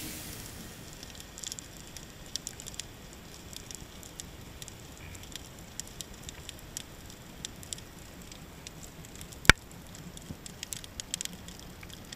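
Underwater sound: a faint crackle of scattered small clicks, with one sharp, loud click about nine and a half seconds in.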